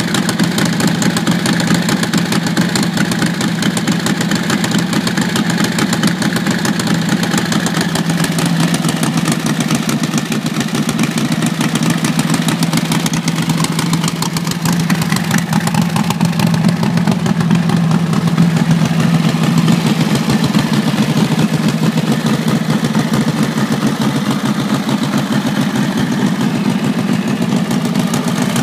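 1939 Harley-Davidson Knucklehead's overhead-valve V-twin engine idling steadily after a valve replacement, its exhaust pulsing evenly, a little louder midway through.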